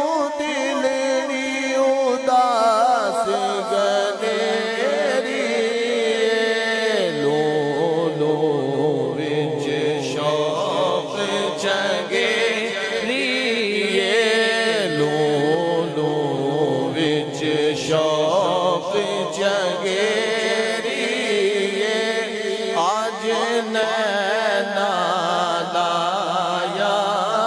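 A man's voice chanting a devotional recitation through a microphone, in long, melodic phrases with held notes and ornamented turns.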